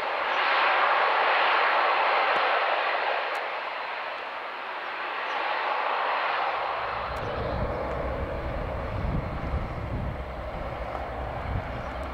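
Texan turboprop trainer's engine at takeoff power as the aircraft lifts off and climbs away, loudest in the first few seconds and then fading. From about seven seconds in, a gusty low rumble of wind on the microphone joins it.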